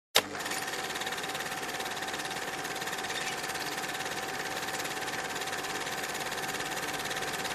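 Cine film projector running: a steady, rapid mechanical clatter and whirr with a steady hum, starting with a click just after a brief dropout at the very beginning.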